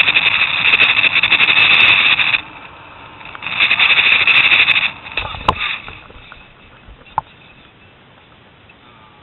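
Zipline trolley wheels running along the steel cable with a loud, high squealing whir. The sound breaks off about two and a half seconds in, comes back for just over a second, and then there is a thump at the arrival, followed by quiet and a single click.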